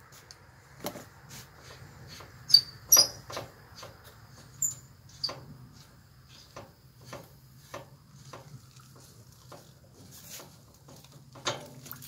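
Scattered clicks, knocks and clinks of hands and tools working at the fittings of a hot-water pressure washer, loudest about two and a half to three seconds in. A few short high chirps come near the middle, over a faint steady low hum.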